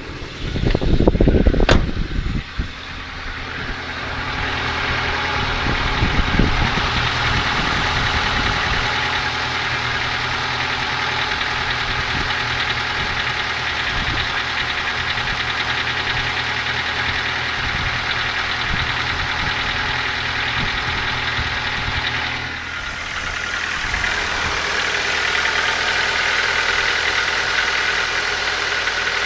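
Ford Focus II engine running at idle with a knock, the engine fault the recording is made to show. A loud burst of noise comes in the first two seconds, and the engine sound dips briefly about three quarters of the way through before returning.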